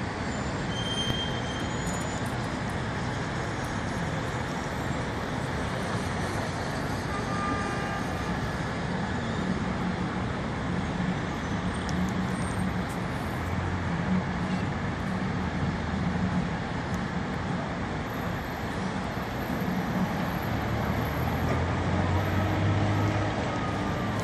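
Steady street and traffic noise with vehicle engines running, a low engine hum swelling a little near the end.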